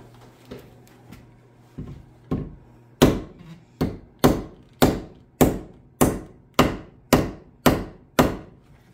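A steel hammer driving a wooden wedge into the kerf of a hickory axe handle to fix the head: a few light taps, then about ten hard, even blows at roughly two per second. The wedge is near full depth and barely sinking any further.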